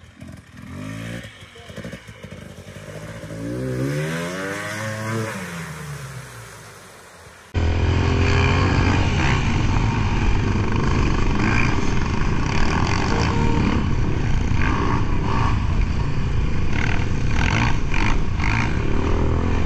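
Enduro dirt bike engine revving, its pitch rising and then falling. About seven and a half seconds in there is an abrupt cut to a much louder, rougher, steady engine sound that lasts to the end.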